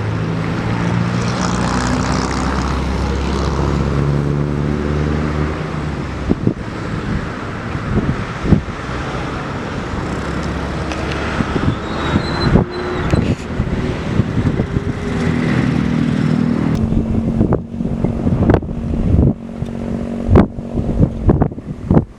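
Motor vehicle engines running amid road traffic, their pitch shifting as they change speed. In the last few seconds, a string of sharp thumps.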